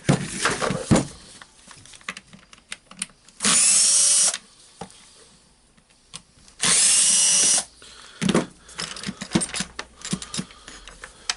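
Small electric power driver backing out the rotary hammer's handle screws: two short runs of about a second each, with clicks and knocks of screws and parts being handled between them.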